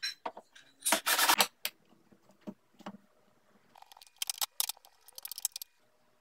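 A cordless drill runs in a short burst of about half a second as it drives a screw into plywood. Later come quick, sharp metallic clicks and rattles as small hardware, a nut and screw, is handled.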